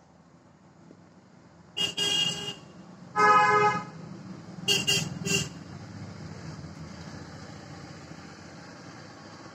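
Vehicle horn honking: one honk, a louder honk about a second later, then three quick short toots. A low steady vehicle hum follows.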